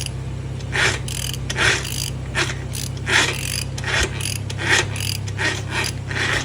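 Repeated rasping, ratcheting mechanical strokes, a little under one a second, over a steady low hum: the Honda TRX450ER's engine being backed up against its sticking crank.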